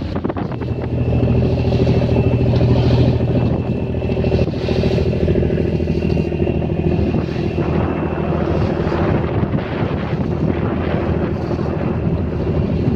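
A fishing boat's engine running steadily under way, growing louder about a second in and then holding an even pitch.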